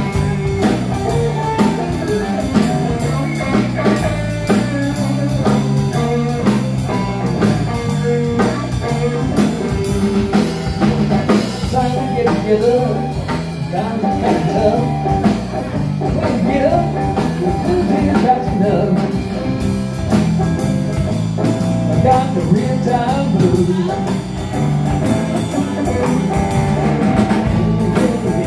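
Live blues-rock band playing: electric guitar over electric bass and a drum kit keeping a steady beat.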